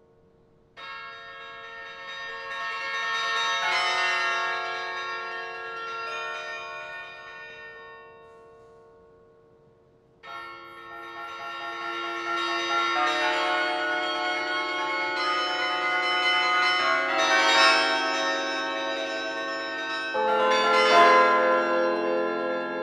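Carillon bells of the 72-bell Rockefeller Chapel carillon played from the keyboard: a slow phrase of ringing bells that swells and fades away, then, after a short pause, a louder, fuller phrase with many bells sounding together and deeper bells joining near the end.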